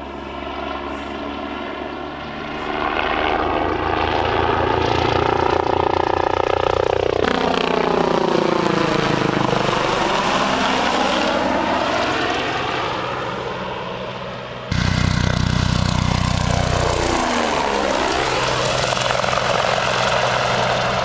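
BK117 twin-turbine helicopter flying low past, its rotor and engine note loud and steady, with the pitch sweeping down as it passes about seven seconds in and dipping again near the end.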